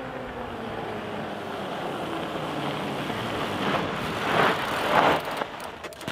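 Fat bike with 4.8-inch knobby tyres rolling in fast on a frozen road under hard disc braking: a tyre hum that falls in pitch as the bike slows and grows louder as it nears. Three louder scrubbing bursts come about four to five seconds in as it comes to a stop, followed by a few sharp clicks.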